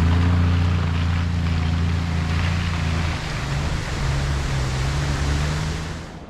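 Vehicle engine running steadily under road and wind noise, its pitch stepping down about three seconds in.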